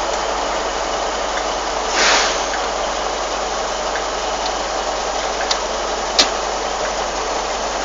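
Diesel multiple unit idling at the platform with a steady hiss of rain over it, a short hiss about two seconds in and two sharp clicks later on.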